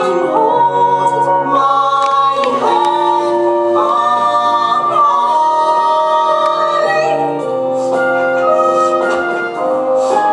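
A slow song from a stage musical: voices singing and holding long notes over instrumental accompaniment.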